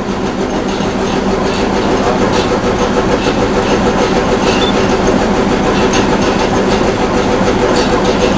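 Small diesel shunting locomotive's engine idling steadily as the locomotive is swung round on a hand-pushed turntable, with a few light clicks over it.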